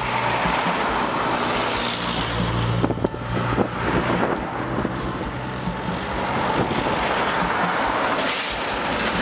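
Cars and lowered pickup trucks driving past one after another, engine and tyre noise on the road, with a brief louder rush as one goes by near the end.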